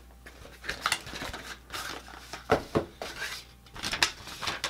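Small cardboard box being opened and its contents handled: scattered knocks, clatters and rustles, the sharpest about two and a half seconds in and near the end, as a paper instruction sheet is drawn out and unfolded.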